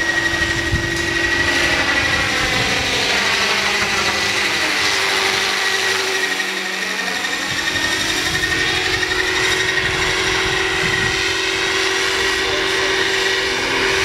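Roban Bell 429 electric scale RC helicopter flying: a steady high whine from its electric motor and drivetrain over the rotor noise, with a sweeping, phasing change in tone and a slight dip in loudness around the middle as it moves across the sky.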